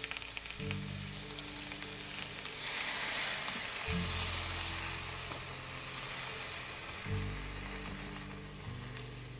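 Japanese mustard spinach and maitake mushrooms sizzling in a frying pan as they are stir-fried with a silicone spatula. The sizzle is strongest about three seconds in. Background music with slow bass notes plays throughout.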